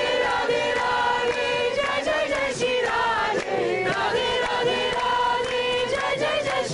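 Group of devotees singing a kirtan together, many voices in chorus holding long notes.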